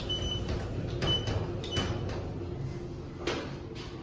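Schindler 3300 elevator car buttons being pressed, each press answered by a short high beep: three beeps in the first two seconds, with clicks of the buttons, then another click about three seconds in.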